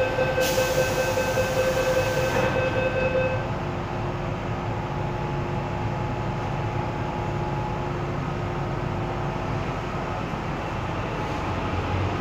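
Inside an MTR M-Train metro car: a steady tone with a burst of hiss during the first three seconds, then the car's steady hum with faint whining tones.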